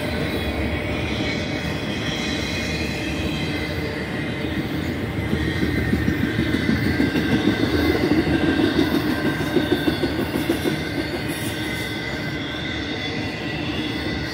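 Intermodal freight cars of a BNSF train rolling past: a steady rumble of steel wheels on rail with thin high wheel tones over it. About halfway through it swells into a louder, quick clatter, then eases back.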